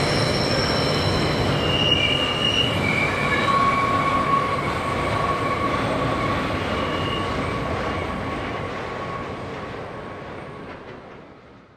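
Container freight train wagons rolling past on a curve, their wheels squealing in several steady high tones over the rumble of the wheels, with an electric passenger train passing close by at the start. The sound fades over the last few seconds.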